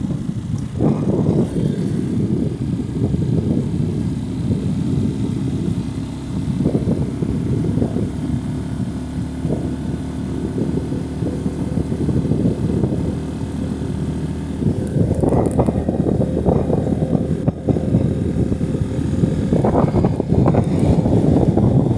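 Wind buffeting the microphone on a moving motorcycle, a rough gusting rumble with the engine's steady drone underneath; the buffeting grows louder about 15 seconds in and again near the end.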